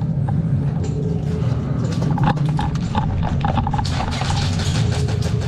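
Quick run of footsteps with gear clattering, most of it between about two and five seconds in, over a steady low rumble.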